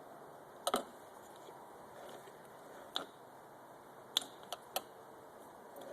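A few light clicks and taps from engine parts being handled during a two-stroke teardown: one about a second in, one near the middle, and three close together in the second half.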